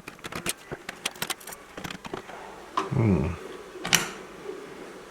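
Quick small metallic clicks and taps of a PC case's expansion-slot covers being worked out with a multi-tool, then a short voice sound about three seconds in and a single sharp click just before four seconds.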